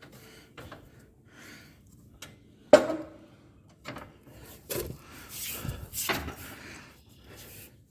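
Metal knocks and scraping as a John Deere 43C center blade's mounting hardware is worked into place under the tractor so it will lock on. One sharp knock about three seconds in is the loudest, with more clatter and scraping a couple of seconds later.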